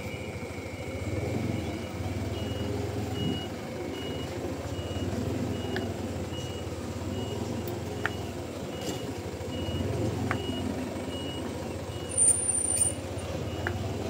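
Truck reversing alarm beeping steadily, about one short high beep every 0.7 seconds, over the low running of a heavy diesel truck engine. A brief high hiss, the loudest sound, comes about twelve seconds in.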